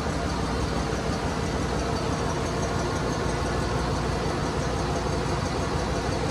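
Ship's engine-room machinery running steadily: a dense, constant drone with a steady hum and no change in level.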